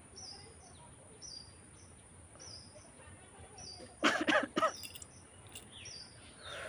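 A person lets out a short, loud vocal outburst about four seconds in. Underneath, a bird repeats a short high call about once a second over a steady high whine.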